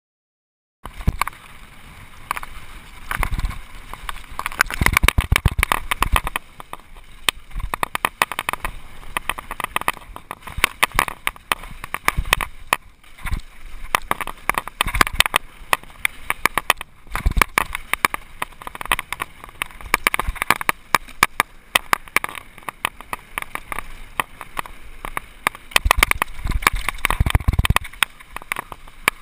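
Mountain bike rattling fast down a rough dirt and rock trail, close to the bike: a dense, irregular clatter of chain, frame and tyres over bumps and stones, with heavier low thumps every few seconds. It starts after a gap of silence about a second in.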